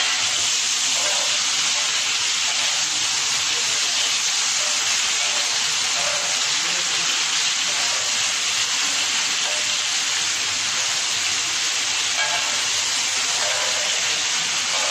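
Boneless chicken pieces sizzling in hot oil on a tawa griddle: a loud, steady frying hiss.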